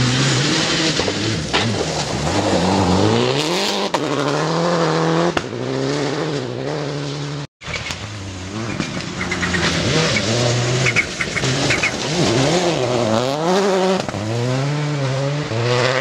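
Rally car engines at full throttle on a gravel stage, revving hard, dropping and climbing again through gear changes and lifts, over the hiss of tyres on loose gravel. The sound breaks off briefly about halfway and picks up again with another pass.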